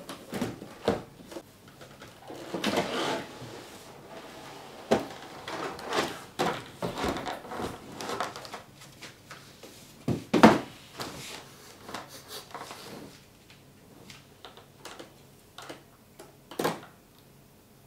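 Cardboard and stiff clear plastic packaging being handled: scraping and sliding of cardboard as the inner tray comes out of its box, then knocks and crackles of the plastic blister tray being set down and handled, the loudest knock about ten seconds in. Sparse small clicks follow near the end.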